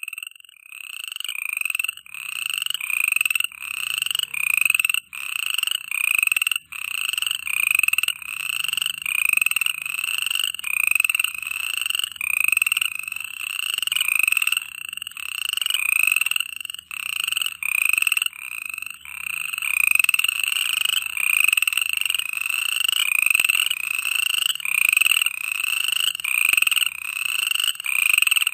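Frogs calling close up in a steady night chorus: a stream of repeated calls, about three every two seconds, each a short note that rises slightly in pitch and swells in loudness.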